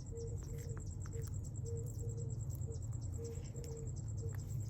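An insect trilling steadily at a high pitch, in an even rapid pulse, over a low rumble, with scattered light clicks.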